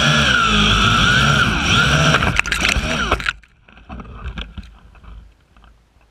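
Zoopa Q650 quadcopter's motors and propellers whirring in flight, the pitch wavering as the motors speed up and slow down, then a quick run of clattering strikes as the drone hits a tree, with the motors cutting off suddenly a little over three seconds in. Faint rustling of leaves follows.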